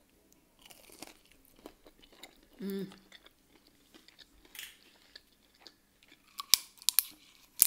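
A person chewing a bite of breaded chicken tender, with soft crunching and wet mouth clicks and a short closed-mouth "mm" a little under three seconds in. A few sharp clicks come near the end.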